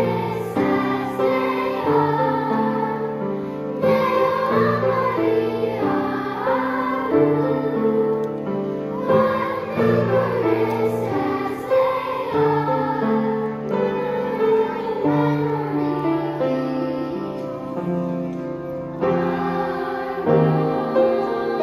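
Children's choir of fourth and fifth graders singing with piano accompaniment.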